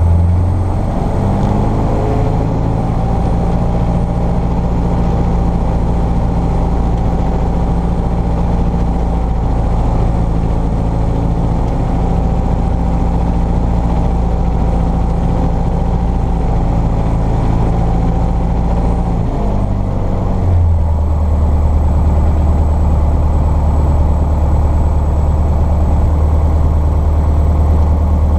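Cessna 150's four-cylinder Continental O-200 engine and propeller running steadily, heard from inside the cockpit. About twenty seconds in, the engine note changes and becomes slightly louder.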